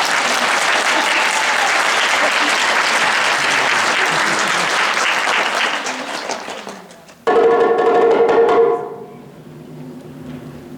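Audience applause that dies away after about six seconds, followed by a sudden loud held musical note that lasts about a second and a half and gives way to fainter low tones.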